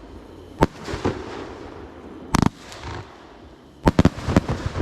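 Fireworks exploding in a series of sharp bangs: single reports about half a second and a second in, a longer doubled blast a little past the middle, then a quick crackling cluster of several bangs near the end.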